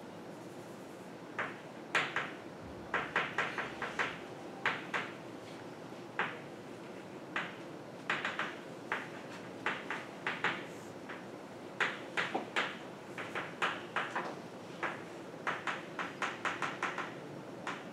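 Chalk writing on a blackboard: a quick, irregular string of short scratches and taps as symbols are written, over steady room noise.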